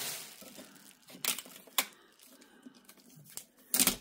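Parts of a cotton candy machine being handled and fitted together: a few sharp clicks and knocks, about a second in, near two seconds and a louder one near the end, with light rustling between them.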